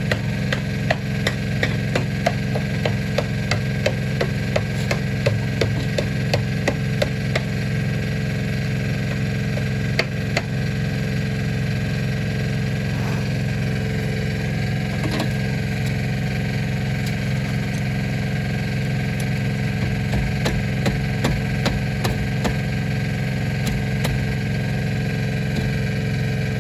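An engine running steadily at a constant speed, with a run of sharp taps about twice a second for the first eight seconds or so.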